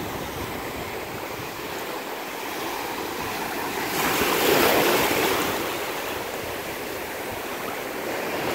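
Surf washing onto a beach: a steady wash of waves, with one wave surging louder about halfway through.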